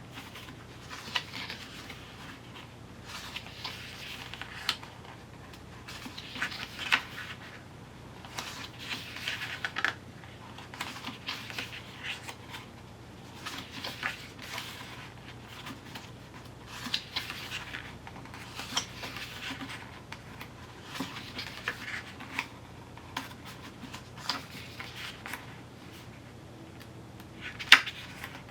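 Paper and card from a CD album package being handled: intermittent rustling, sliding and scraping of pages and photocards, with light taps and one sharper click near the end.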